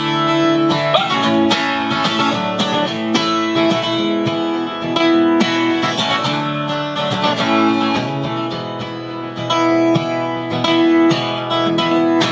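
Acoustic guitar strummed in a steady rhythm, an instrumental break between verses of a live song.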